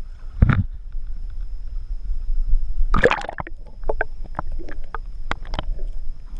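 Water splashing and sloshing around a camera dipped below the surface. A thump about half a second in and a loud splash about three seconds in are followed by a run of sharp knocks and clicks, over a low steady rumble.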